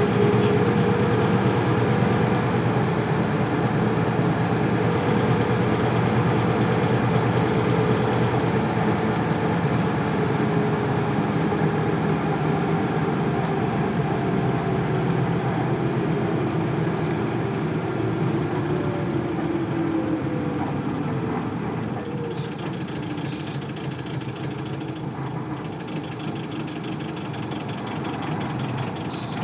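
1998 Isuzu Cubic KC-LV380L city bus and its 8PE1 V8 diesel, running on the road. In the second half a whining tone falls in pitch and the sound eases off as the bus slows.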